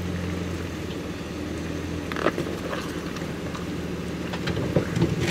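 Jeep Grand Cherokee's engine running at low, steady revs, with scattered knocks and clatter from about two seconds in.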